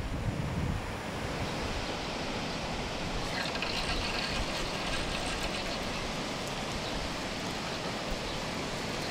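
Steady rushing noise of wind and moving water, with wind buffeting the microphone in the first second.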